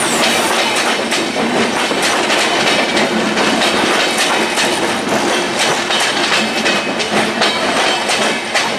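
Broad-gauge intercity express passenger coaches rolling past close by: a loud, steady rush of wheels on rail with a quick, irregular run of sharp clicks as the bogies cross rail joints.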